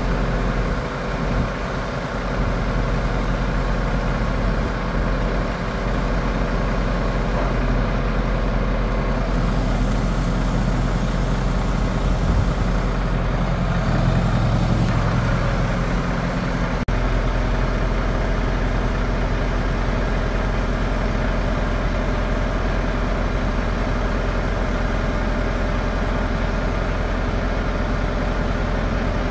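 Diesel truck engine running steadily at idle while powering the hydraulic cranes of a side-loader trailer lifting a shipping container. Its low note shifts a little over halfway through.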